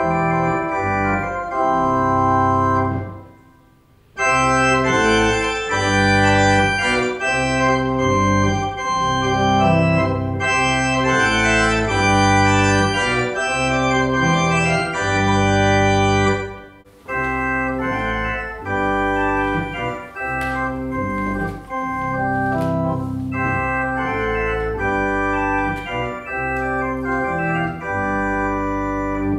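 Pipe organ playing sustained chords in slow-moving harmony, breaking off briefly twice: about three seconds in and about seventeen seconds in.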